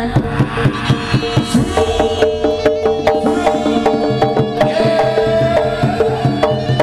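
Traditional East Javanese jaranan-style ensemble music: quick hand-drum strokes about four a second, joined about two seconds in by a held, stepping melody line.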